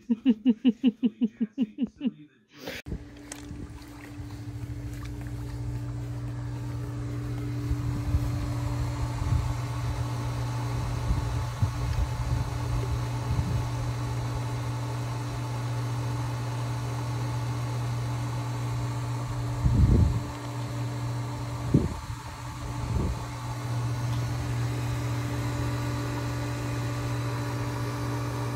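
Above-ground pool pump motor and sand filter running with a steady hum. A few low thumps come about twenty seconds in. It is preceded at the start by a short, loud run of rapid pulsed sounds, about five a second.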